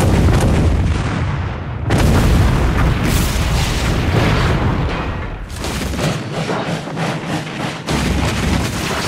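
Loud explosions booming and blasting one after another, the din changing abruptly about two seconds in and again around five and a half and eight seconds in.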